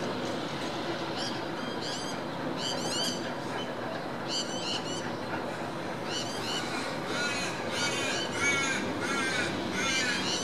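Birds giving short, repeated calls in quick groups over a steady background hum, the calls coming thicker and overlapping from about seven seconds in.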